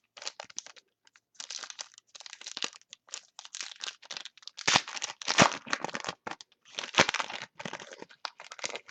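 A trading-card pack wrapper being crinkled and torn open, with the cards inside handled, in a run of irregular crackling bursts that is loudest about five and seven seconds in.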